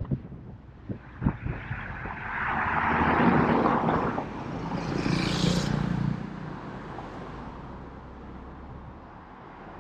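Road and traffic noise heard from an open-top car driving through city streets, with a few wind buffets on the microphone near the start. A loud swell of vehicle noise builds about two seconds in and fades after about six seconds, leaving a quieter steady rumble.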